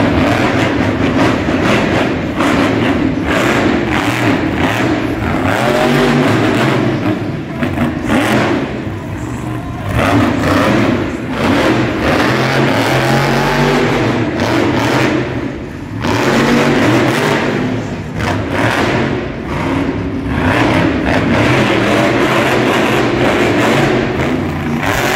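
Monster truck engines revving hard and easing off again and again as the trucks drive and turn on a dirt floor. The engines run loud, with the pitch rising and falling and several brief dips in between.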